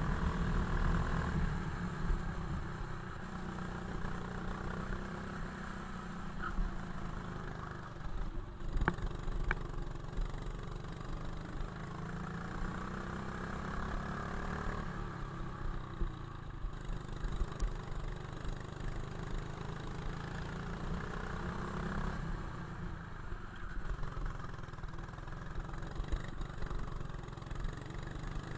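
Go-kart engine running at speed through a lap, recorded on board, its pitch rising and falling several times with the throttle, over a steady low rumble. Two sharp knocks about nine seconds in.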